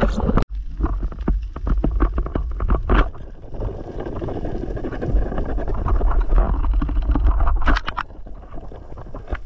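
Underwater camera audio of a diver moving through the water: a heavy low rumble of water against the camera housing, with scattered short clicks and knocks in the first few seconds and again near the end.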